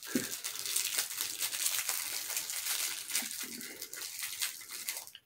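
Small pressed candies rattling and clicking against each other in a small candy container as they are shaken and picked out, a dense run of light clicks that stops just before the end.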